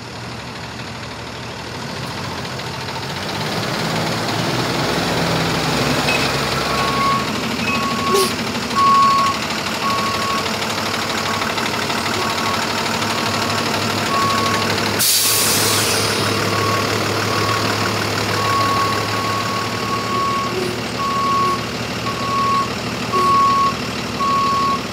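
Diesel box truck's engine running while its reversing alarm beeps repeatedly, a little more than once a second, starting about a quarter of the way in. A short, loud hiss of air comes near the middle.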